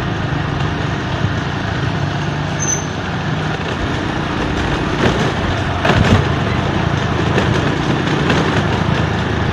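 Small motorcycle engine running steadily under way, with wind rush and tyre noise on a concrete road.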